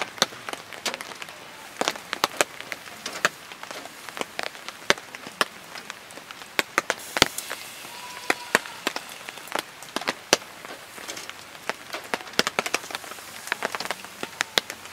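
Charcoal crackling and seafood sizzling on a small charcoal grill's wire grate: irregular sharp pops and ticks over a steady light hiss, with a brief louder hiss about seven seconds in.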